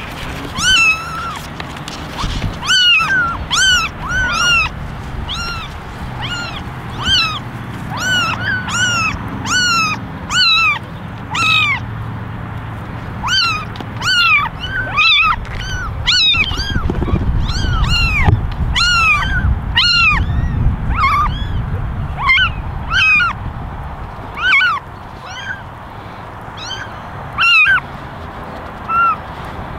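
Very young kittens mewing over and over in short, high, thin cries, about one or two a second and at varying pitches, over a low rumble that swells about halfway through.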